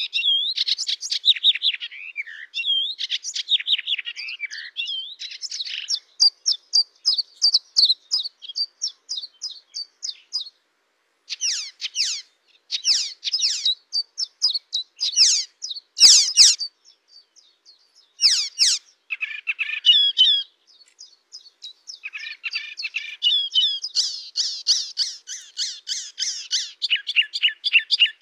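A Hippolais warbler singing a fast, rapid-fire chattering song: dense runs of quick, sharp high notes in several long phrases, broken by brief pauses.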